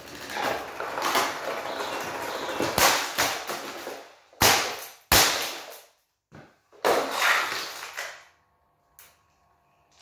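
Golf club striking an Onix plastic box fan on a concrete floor: a run of sharp cracks and clattering plastic, the two loudest hits about halfway through.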